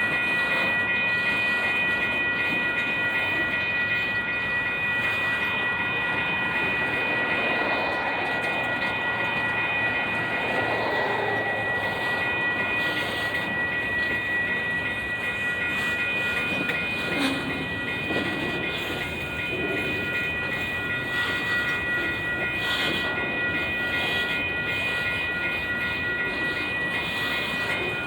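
Freight cars of a long Union Pacific mixed freight train rolling past, a steady rumble of wheels on rail. Several steady high-pitched tones ring over it throughout.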